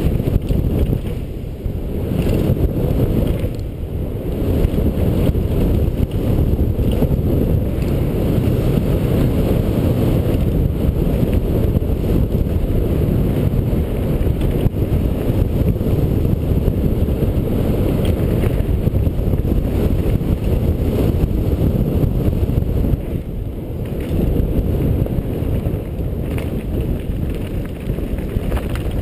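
Wind buffeting a helmet-mounted camera's microphone on a fast mountain-bike descent, a steady low rush, mixed with the tyres rolling on dirt and gravel and occasional knocks from the bike over rough ground.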